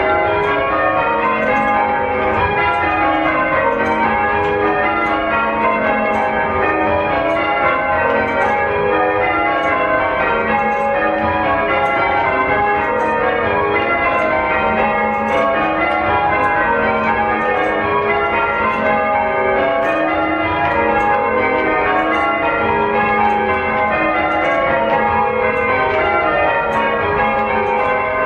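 Church tower bells rung one after another in a steady, repeating sequence, each strike ringing on into the next so the tones overlap continuously.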